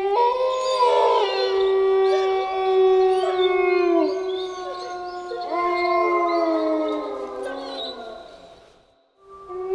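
Several wolves howling together in a chorus of long, overlapping howls held at different pitches, some falling away at their ends. The chorus fades out about nine seconds in, and a new howl starts just after.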